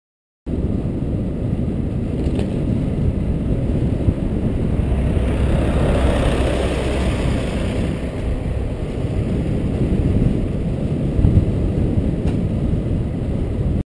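Wind buffeting and road rumble on a bicycle-mounted camera's microphone while riding, swelling for a few seconds around the middle. The sound cuts in suddenly about half a second in.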